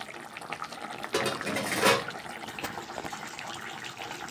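Thick mustard-paste fish curry bubbling in a kadai as it boils, a steady crackle of small popping bubbles, with a louder rush of sound lasting under a second, about a second in.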